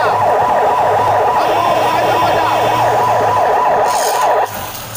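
Electronic siren sounding a fast yelp, its pitch sweeping down over and over several times a second, then cutting off about four and a half seconds in.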